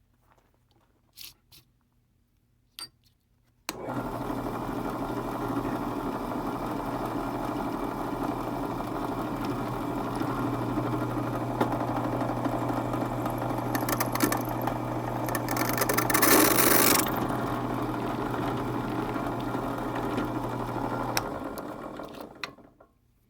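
Benchtop drill press motor switched on after a few light clicks and running steadily with a constant hum while the bit drills the centre pivot hole in a pocket-knife back spring, with a brighter, louder cutting hiss about two-thirds of the way through. The motor is switched off near the end and spins down.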